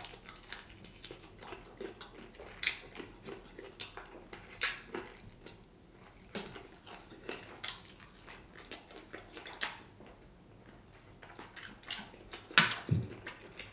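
Close-up eating of crispy fried chicken wings: biting, crunching and wet chewing, heard as scattered short crackles and mouth clicks, with one louder crunch near the end.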